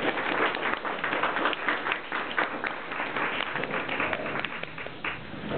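Audience applauding, a dense patter of claps that thins out toward the end.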